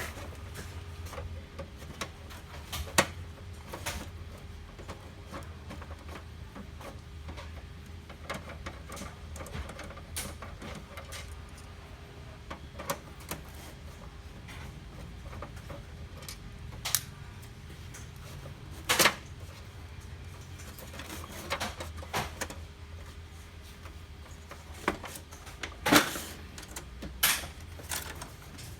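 Irregular sharp clicks and taps of plastic laser-printer parts being handled and taken apart, over a steady low hum.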